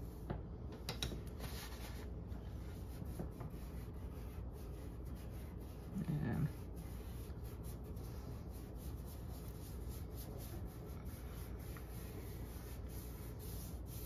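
Soft pastel rubbed over watercolor paper by hand: a faint, scratchy rubbing made of many light strokes. A brief, louder, low sound comes about six seconds in.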